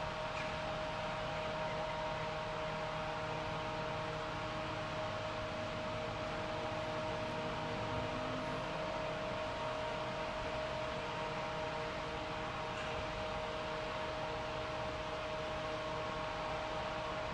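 Steady machinery hum over an even hiss, like large ventilation fans or generators running, with a few constant tones and no change throughout.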